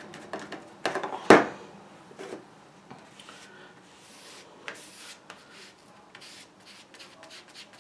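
A foam sponge brush being worked in a plastic tub of paint mixed with fine pumice gel, with a few clicks and one sharp knock about a second in, then a run of soft, gritty rubbing strokes as the sponge brush spreads the pumice mix across archival board.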